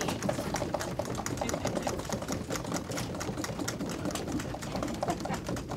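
A room full of people doing a drum roll by drumming rapidly on wooden tables and benches: a fast, continuous patter of many overlapping taps.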